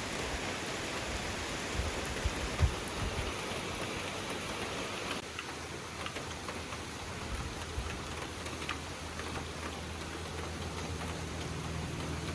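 Steady rain, an even hiss, with a few soft low thumps about two to three seconds in and a low hum joining in the second half.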